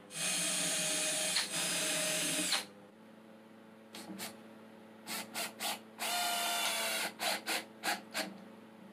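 Cordless drill/driver running into a wooden board. A steady run of about two and a half seconds with a brief dip, then after a pause a few short trigger bursts, a one-second run and a quick string of four or five short bursts as a screw is driven home and seated.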